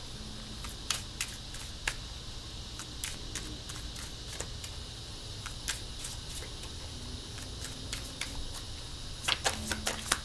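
A deck of tarot cards being shuffled by hand: light, irregular clicks and flicks of card on card, with a quick run of louder snaps near the end.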